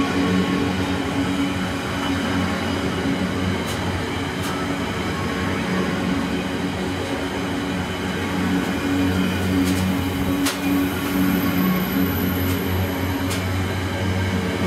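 Laden wagons of a containerised gypsum freight train rolling past close by: a steady rumble of steel wheels on rail, broken by a few sharp clicks. A thin high tone sounds for a couple of seconds after about ten seconds.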